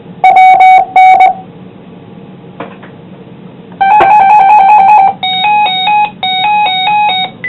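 Electronic signalling tones over a two-way radio channel: two short beeps about a second apart, then after a few seconds of faint hiss a steady tone that turns into a rapid warble stepping between two pitches.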